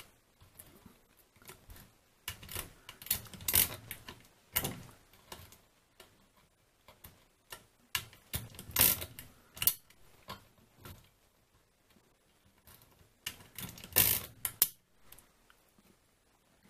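Feliks-M pinwheel mechanical calculator worked by hand: the crank is turned clockwise to add, giving clusters of rapid metallic clicking and ratcheting. There are three louder bursts a few seconds apart, with fainter clicks between them as the setting levers are moved.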